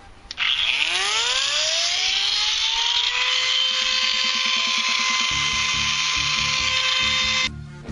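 Handheld trim router switched on, its motor whine rising in pitch over two or three seconds to a steady high whine, then running as it routes a shallow recess into a foam core along a template. The whine cuts off suddenly near the end.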